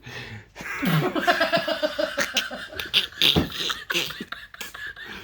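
People laughing in quick pulsing bursts, with a few short sharp knocks in the second half.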